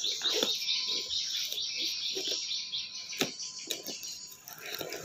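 A bird chirping a rapid series of short falling notes, over a knife sawing and scraping through a taped cardboard box, with a couple of sharp clicks about three seconds in.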